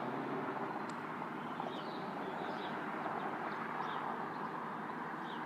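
Steady outdoor background rumble with no rise in level, and small birds chirping briefly several times over it.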